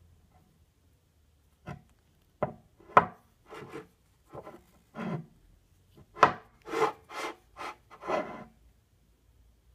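Emco Compact 5 three-jaw lathe chuck being handled and turned on a tabletop: a string of short, uneven scrapes and taps of the steel body against the surface and the hands. They begin about two seconds in and are busiest in the second half.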